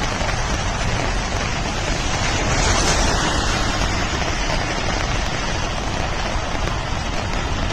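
Steady rush of water from heavy rain and flooding, swelling slightly about three seconds in.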